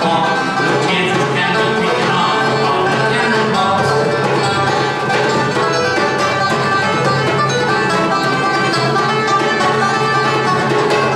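Live acoustic bluegrass-style playing: five-string banjo picking and acoustic guitar strumming, with a hand drum keeping time.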